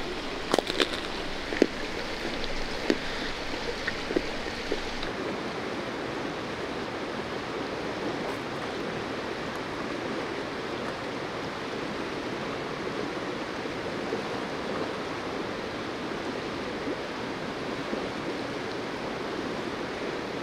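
Steady rushing of a flowing creek, with a few faint clicks in the first seconds.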